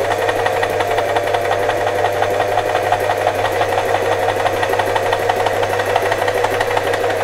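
Singer FM 2250 electric sewing machine running steadily at speed, stitching a buttonhole through denim: a constant motor hum with a fast, even ticking of the needle strokes.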